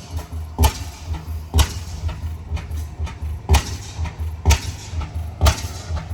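Slow-running antique engine at a farm machinery show, giving a sharp exhaust bang about once a second over a low, steady throb.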